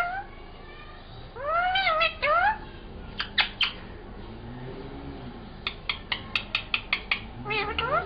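Rose-ringed (Indian ringneck) parakeet mimicking a cat's meow: whiny, arching calls about a second and a half in and a rising call near the end. Between them come a few sharp clicks and then a quick run of about nine clicks.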